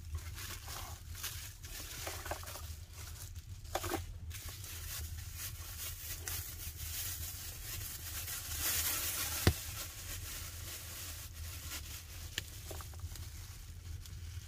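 Plastic bags crinkling and rustling as a piece of raw meat is unwrapped and handled, over scattered crackles from a wood fire. One sharp crack stands out about two-thirds of the way through.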